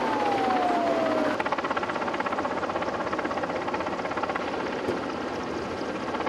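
A siren's wail falls in pitch and dies away about a second in. Then a helicopter's rotor beats fast and steady.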